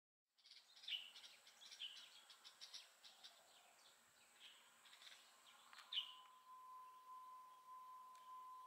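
Faint chirping of small birds, with a few louder calls about a second in and about six seconds in. From about six seconds in, a steady tone joins them.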